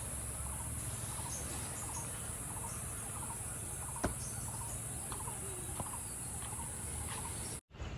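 Insects shrilling steadily on one high band, with scattered short chirps over it and a single sharp click about four seconds in. The sound breaks off suddenly near the end.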